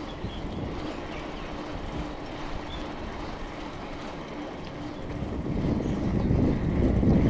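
Road noise of a bicycle ride: tyre rumble and wind rush on the action camera's microphone, growing louder about five seconds in.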